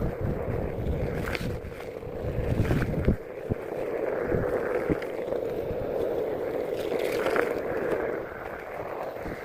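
Onewheel electric board riding over wet pavement in the rain: a steady rushing hiss of tyre spray and wind, with gusts of wind buffeting the microphone in the first few seconds and a few short knocks.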